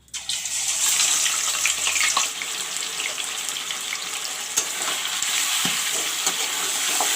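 Chicken pieces dropped into hot mustard oil and frying: a loud sizzle that starts suddenly, is loudest for the first two seconds, then settles into a steady sizzle with scattered pops and crackles.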